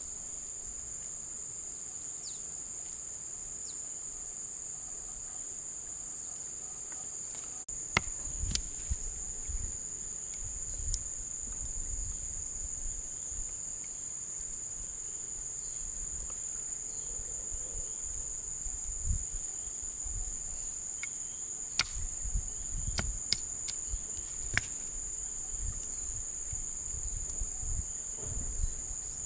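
A steady, high-pitched chorus of insects. From about eight seconds in there are also scattered sharp clicks and low bumps.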